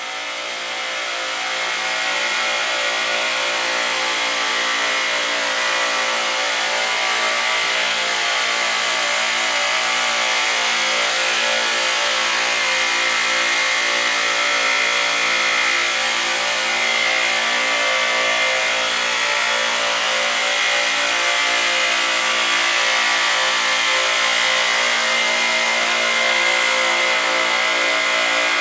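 Refrigeration compressor machinery running steadily: a dense hum made of many steady tones over a hiss, swelling over the first couple of seconds and then holding level.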